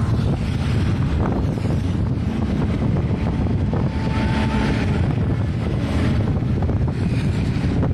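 Wind buffeting the microphone on a moving motorcycle, a steady heavy rumble with the ride noise underneath. A brief faint tone sounds near the middle.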